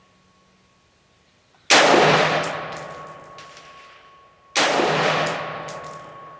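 Two shots from a Radical Firearms RF-15 AR-15 rifle firing 55-grain ammunition, about three seconds apart. Each shot's report rolls off in a long echo over a couple of seconds, with a few faint clinks after it.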